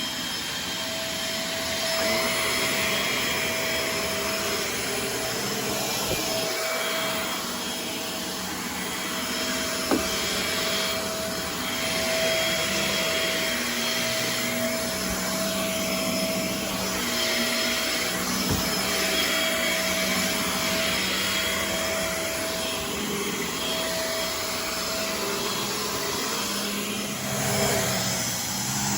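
Shark Navigator Swivel bagless upright vacuum cleaner running steadily while vacuuming a floor, its motor giving a constant whine over the rush of air. There is a short knock about ten seconds in, and the sound swells louder near the end.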